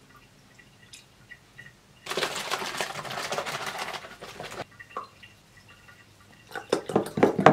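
A carton of milk shaken hard for about two and a half seconds, the liquid sloshing inside, then poured into a glass, with a run of loud glugs near the end.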